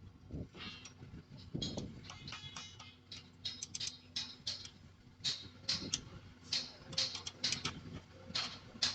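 Sharp, irregular metallic clicks and ticks from steel fixing work on rebar, several a second.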